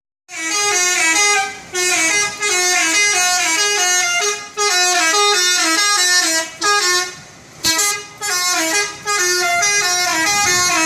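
Bus 'telolet' horn: a multi-tone air horn playing a quick tune of short changing notes, in several phrases broken by brief pauses. A sharp click cuts in about three-quarters of the way through.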